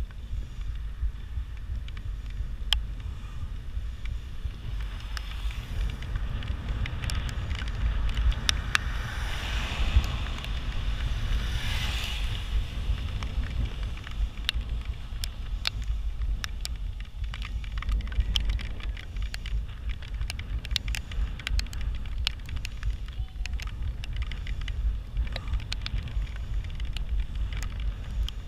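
Bicycle ride noise: wind buffeting the microphone in a steady low rumble, with many small clicks and crackles from the moving bike. A louder hiss swells and fades around the middle.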